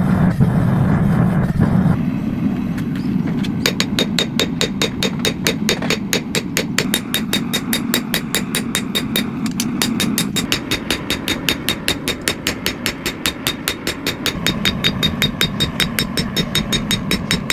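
A mechanical power hammer running, its motor humming, then striking a fast, even train of blows, about five a second, starting a few seconds in.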